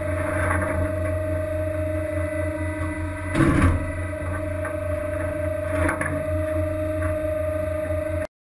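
Steady low mechanical hum with a constant droning tone, and a brief louder clatter about three and a half seconds in; it cuts off suddenly near the end.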